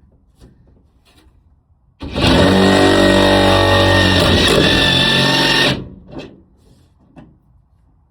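A power drill runs for almost four seconds as it drives a self-drilling Tek screw into a van's sheet-metal door, the motor under load while the bit cuts a new hole in the steel. Its start is sudden and it stops sharply.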